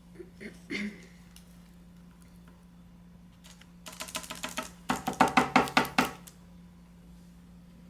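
A quick run of sharp, ringing taps, about five or six a second for just over a second, after a few softer clicks and knocks earlier on: hard objects being tapped or handled on the table during a super glue and baking soda plastic repair.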